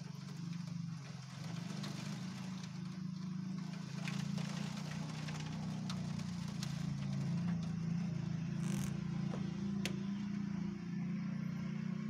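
Night thunderstorm: gale-force wind rushing through trees over a low, rolling rumble of thunder that swells about four seconds in, with scattered faint clicks.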